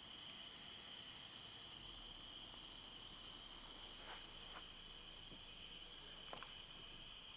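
Insects, crickets or the like, trilling steadily and faintly at one high pitch. A few faint clicks come about four and six seconds in.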